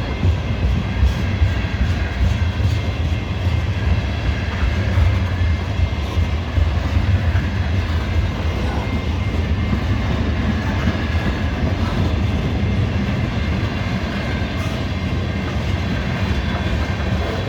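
CSX mixed freight train rolling past, a steady loud rumble of its cars' wheels on the rails.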